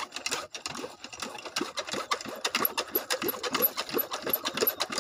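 Hand priming pump on a shallow tube-well irrigation pump being worked, with a quick, irregular clatter and water gurgling as water poured into the pipe is drawn up to prime the pump before the diesel engine starts.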